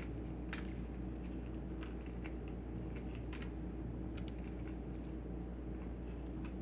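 Faint, irregular crackles and clicks of a cracked hard-boiled eggshell being peeled by hand, over a steady low hum.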